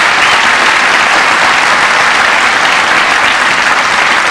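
Audience applauding, a dense, steady clapping that stays loud throughout.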